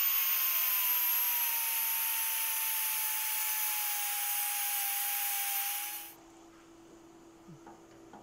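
Angle grinder with a thin cutoff wheel cutting through a metal piano hinge: a steady grinding hiss over the motor's whine, which sags slowly in pitch under load. It stops suddenly about six seconds in.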